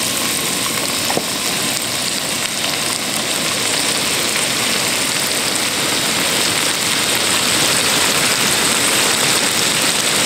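Sliced mushrooms sizzling in melted butter in a frying pan, a steady sizzle that grows slightly louder toward the end.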